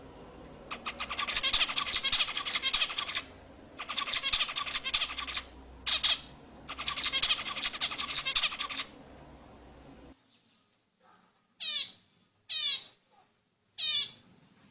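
Zebra finches calling: three long bouts of dense, rapid buzzy chatter, then, after a sudden change of recording about ten seconds in, three short separate calls, each sliding down in pitch.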